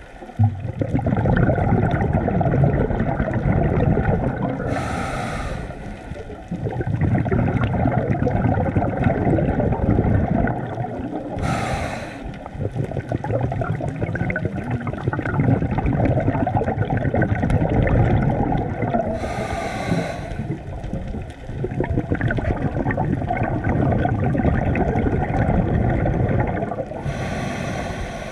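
Scuba diver breathing through a regulator underwater: a short hissing inhale about every seven to eight seconds, four in all, each followed by a long rush of exhaled bubbles.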